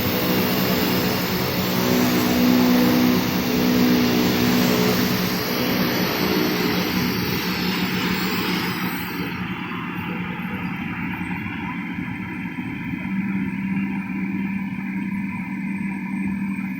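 CNC machine running with a steady motor hum and dense whirring noise. About halfway through the higher hiss drops away, leaving a quieter, lower hum.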